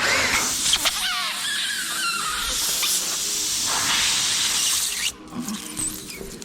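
Compressed air hissing out of a punctured tire as the plug tool is worked into the hole, with wavering squeals; it starts abruptly and cuts off about five seconds in.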